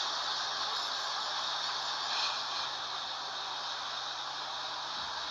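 DB Class 212 diesel-hydraulic locomotive running past, a steady rushing engine and running noise with a faint low hum underneath.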